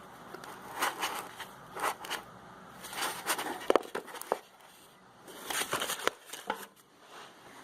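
Packaging rustling and crinkling with a few light clicks and knocks, in several short bursts, as a carbide lathe tool is unpacked and handled.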